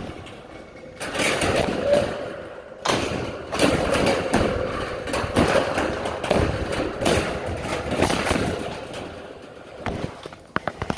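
Dog chewing and crunching raw lamb chops: a run of loud, irregular crunches, about one or two a second, that dies away near the end.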